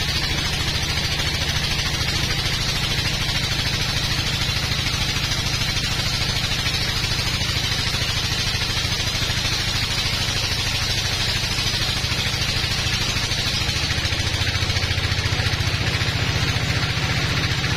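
Sawmill log bandsaw running and cutting through a teak log: a steady low drone from the machine under a constant hiss of the blade in the wood. The drone grows a little stronger near the end.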